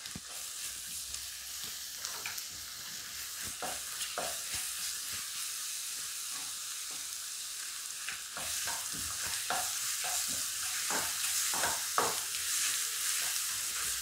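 Sliced onions, green chillies and crushed ginger-garlic sizzling as they sauté in a black-coated pan, with a wooden spatula stirring and scraping through them in short strokes. The sizzle grows a little louder about halfway through.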